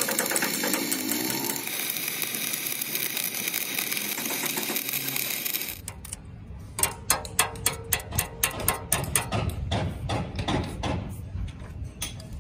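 Stick-welding arc crackling and hissing steadily as a seam is laid on a steel excavator bucket, cutting off about six seconds in. Then a run of sharp metallic knocks, several a second, as slag is chipped off the fresh weld bead.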